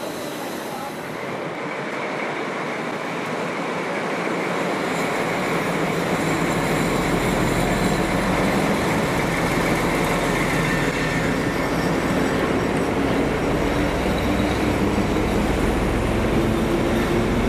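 SU46 diesel locomotive running while shunting, its low engine rumble building steadily louder over the first several seconds, with a thin steady high tone above it.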